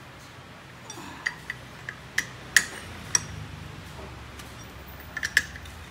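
Metal hand tools and engine parts clicking and clinking as bolts are tightened on a motorcycle engine's side cover: about ten sharp, irregular clicks, with a quick cluster near the end.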